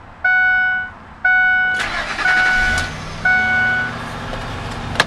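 The truck's dashboard warning chime dings about once a second. About two seconds in, the starter cranks and the 2006 Ford F350's 5.4-litre gasoline V8 fires right up, then settles into a steady idle. There is a sharp click near the end.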